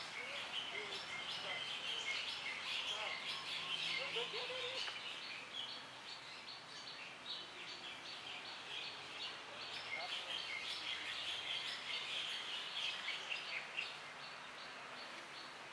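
Many birds chirping at once in dense, overlapping chatter, in two spells that ease off in the middle.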